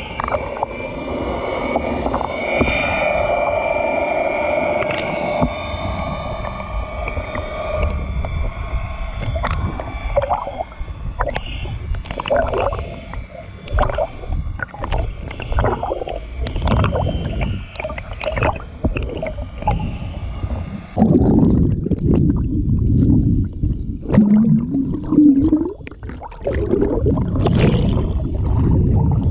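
Bottlenose dolphins heard underwater: drawn-out whistles for the first several seconds, then a long run of sharp clicks. In the last several seconds the sound turns to a low, muffled water rumble with a brief rising tone.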